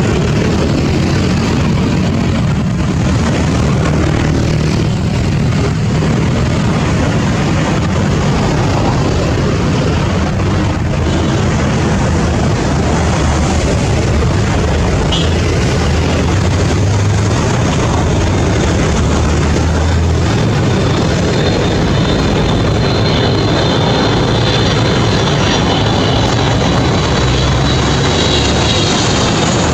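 Aircraft engines running loudly and steadily, with a high whine joining about two-thirds of the way through.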